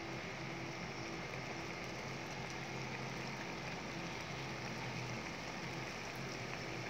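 Tauco sauce with tofu and petai bubbling and sizzling in a wok, a steady crackling hiss with a faint low hum underneath.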